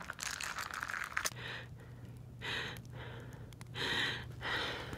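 A woman breathing heavily in separate gasping breaths, about four of them, with a steady low hum that starts about a second in.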